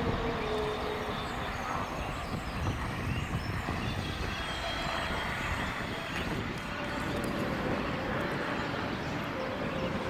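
Steady outdoor background noise, a low fluctuating rumble and hiss with the faint hum of distant traffic.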